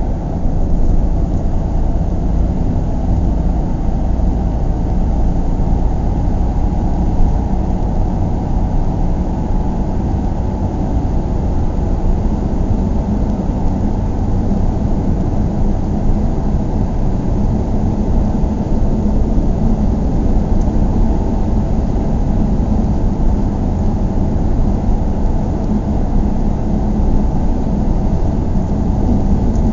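Cabin noise inside a closed car cruising on a highway: a steady low rumble of engine, tyres and road, with faint wind.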